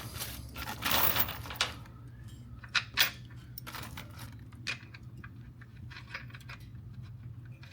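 Small loose metal parts clinking as they are handled, with a rustle about a second in, a sharp clink about three seconds in and scattered lighter clicks after. A steady low hum runs underneath.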